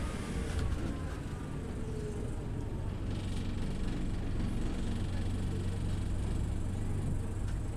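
Scania OmniLink CL94UB city bus engine running with a steady low drone.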